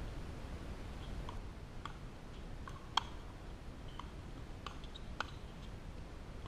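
Pickleball paddles striking a hollow plastic ball during a rally: a series of short, sharp pops, the loudest about three seconds in and again about five seconds in, with fainter pops between.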